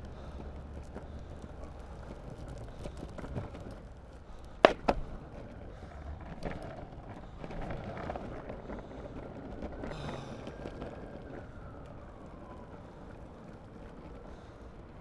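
Longboard wheels rolling steadily over rough asphalt, with two sharp knocks in quick succession about four and a half seconds in.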